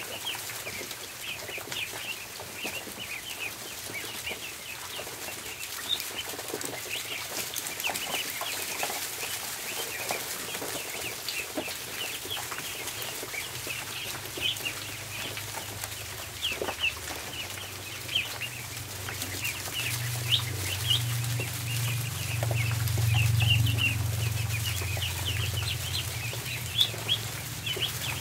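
A crowd of ducklings peeping continuously, many short high peeps overlapping, with a few light taps. A low hum comes in during the second half and is loudest about two-thirds of the way through.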